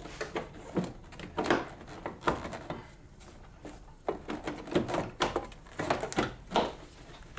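Hard plastic engine-bay trim and a wiring-loom channel being wiggled loose and pulled out by hand: irregular plastic clicks, knocks and rubbing, in two spells with a short pause between.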